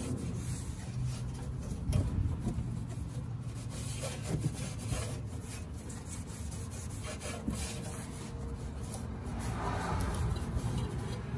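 A cloth rag rubbing and wiping over the outside of an old steel car muffler in irregular strokes, with a few light knocks.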